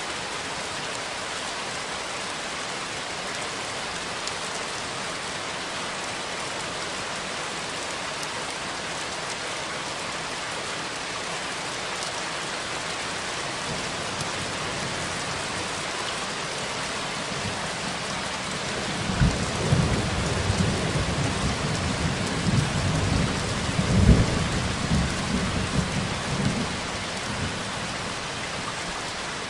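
Steady rain falling. About two-thirds of the way through, a roll of thunder rumbles in, peaks a few seconds later and fades away.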